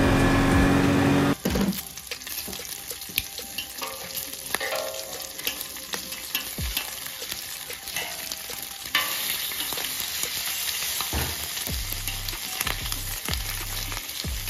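A side-by-side utility vehicle's engine running on the move, cut off about a second and a half in. Then bacon sizzling and crackling on a flat-top griddle, with clicks from metal tongs turning the strips.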